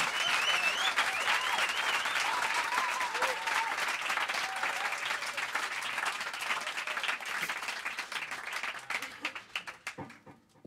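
Small audience applauding, with a few whoops and cheers in the first few seconds; the clapping thins out and dies away near the end.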